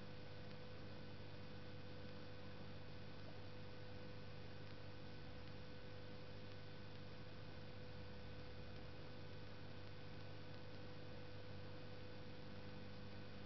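Steady electrical hum with a faint high tone and even hiss, unchanging throughout, with no distinct splashes or knocks.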